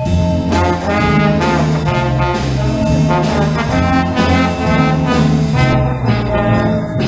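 Middle school band playing live, with trombones and trumpets leading over steady percussion.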